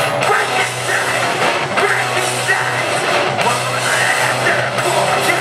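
A live metalcore band playing at full volume, heard from the crowd: distorted electric guitars, bass and drums, with the vocalist singing into the microphone.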